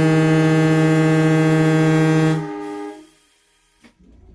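The Electroliner's air horn, sounded by a pull cord from the cab, blows one long steady chord of several notes. It cuts off a little over two seconds in and dies away within the next second.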